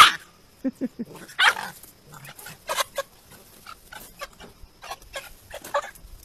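A puppy yapping and yelping in short separate bursts while play-fighting with a rooster, opening with one loud sharp cry.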